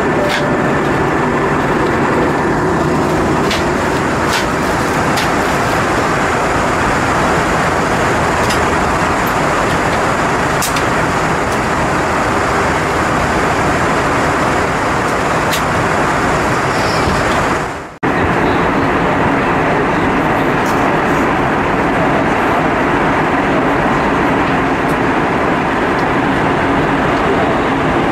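Steady, loud rush of cabin noise inside an Airbus A320-232 airliner: airflow and engine noise heard from a passenger seat. The noise briefly fades out and cuts about two-thirds of the way through, then picks up again unchanged.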